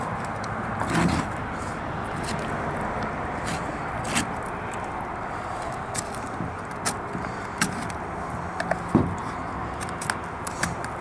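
Boning knife working meat out of a snapping turtle's shell, its blade clicking and tapping sharply against shell and bone about a dozen times at an uneven pace. The loudest knock comes about nine seconds in, over a steady low background noise.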